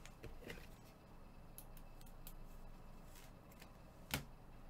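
Faint handling of trading cards by black-gloved hands: cards and plastic sleeves sliding and rustling, with scattered soft ticks and one sharper click about four seconds in.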